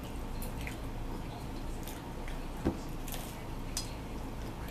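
Mouth sounds of people eating pizza: scattered wet smacks and chewing clicks over a steady low hum, with one soft thump a little past halfway.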